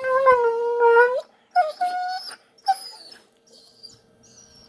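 A dog whining in play while wrestling: one long, steady whine of about a second, then two shorter, higher-pitched whines, then a few faint high squeaks near the end.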